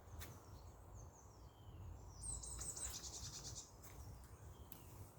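Faint wild bird chirps, with a rapid high trill lasting over a second about two seconds in, over a low rumble of wind on the microphone.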